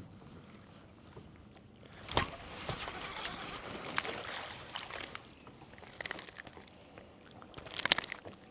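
Water sloshing around a fishing boat, rising for a couple of seconds near the middle, with a few sharp clicks and knocks, the loudest about two seconds in and a cluster near the end.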